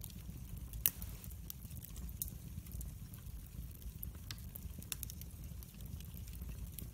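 Split wood logs burning in a fireplace: a steady low rumble of flame with scattered sharp crackles and pops, the loudest about a second in.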